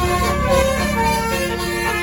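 A tour bus's basuri telolet horn, a multi-trumpet musical horn, playing a tune in held notes that step from pitch to pitch, with the bus engine rumbling underneath.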